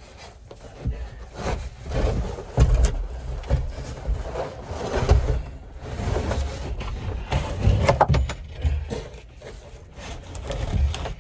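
A cut wooden panel being worked into the back wall of a wooden whelping box: irregular knocks, bumps and scrapes of wood against wood, with rumbling handling noise.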